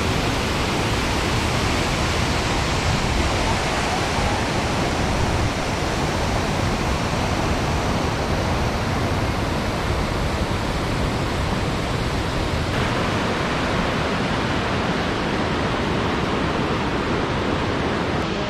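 Waterfall rushing: a loud, steady, even roar of falling water.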